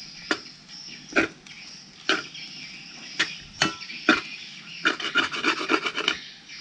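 Metal spatula scraping and scooping fried rice against a wok: separate scrapes about once a second, then a quick flurry of strokes near the end.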